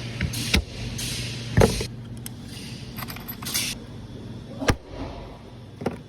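Factory machinery: a steady hum broken by four sharp knocks and several short bursts of hiss.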